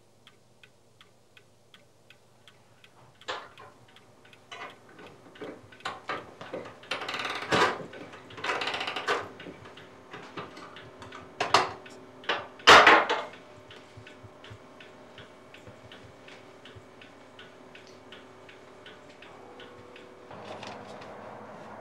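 Wooden tambour mantel clock ticking steadily, about three ticks a second. In the middle, a hand working at the clock makes louder clicks, knocks and rattling over the ticking, the loudest a little under 13 seconds in.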